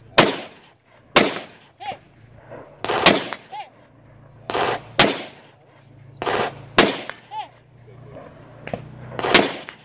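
Rifle shots fired one at a time, six in all, spaced one to two and a half seconds apart. A faint ringing ping from a struck steel target follows about half a second after several of the shots.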